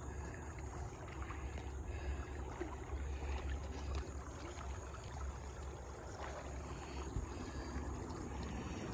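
Aluminium john boat under way at slow speed, water swishing along the hull over a steady low rumble.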